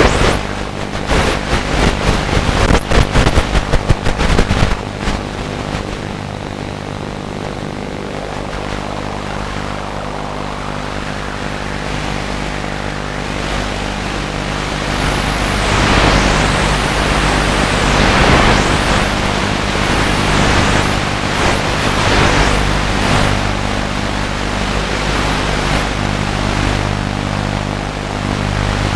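Radio-controlled model aircraft flying, its motor and propeller running with a steady drone that swells and fades as it moves, with rough rushes of wind on the microphone during the first few seconds.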